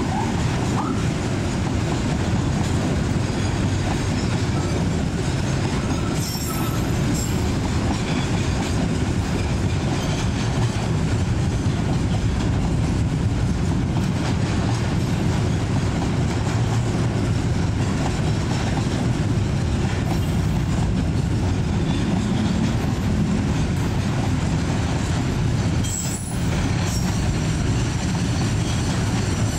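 Container freight train's loaded flat wagons rolling past close by: a steady heavy rumble of wheels on rail, with brief high squeals about six seconds in and again near the end.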